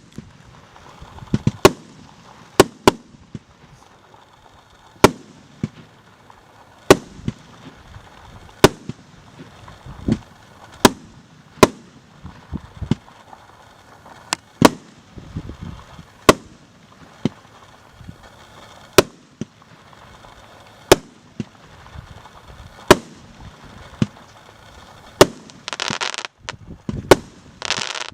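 Consumer firework cake firing its shots one after another, a sharp bang every second or two. Near the end comes a dense stretch of crackling.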